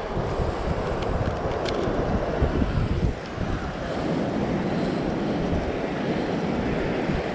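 Ocean surf rushing on the beach, with wind buffeting the microphone in low gusty rumbles that ease about three seconds in.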